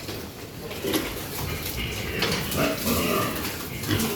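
Pigs grunting in short, irregular bouts.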